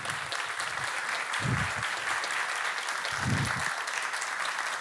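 Audience applauding steadily, a dense even clapping, with two dull low thuds about a second and a half and three seconds in.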